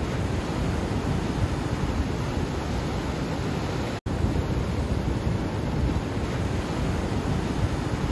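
Ocean surf breaking and washing over rocky shore ledges in a steady rush, with wind buffeting the microphone. The sound cuts out for an instant about halfway through.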